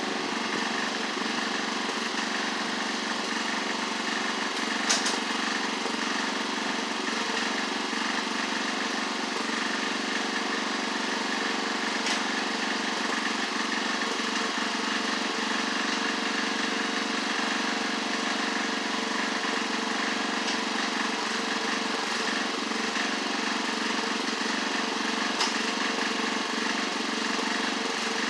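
A Craftsman LT1138 lawn tractor's single small engine runs at a steady speed. A few sharp clicks or knocks sound over it.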